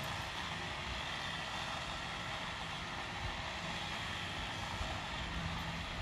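Chainsaw engine running steadily.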